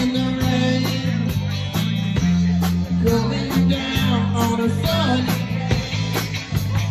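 Live rock band playing: electric guitars, bass guitar and drum kit with a steady beat.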